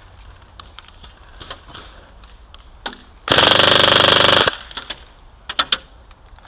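Airsoft gun firing one full-auto burst of about a second, a fast even rattle, with a few single sharp snaps before and after it.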